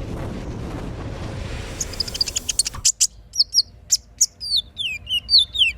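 A steady noisy rush cuts off about three seconds in, and a small cage bird chirps repeatedly: sharp clicks, then quick high whistles that slide downward.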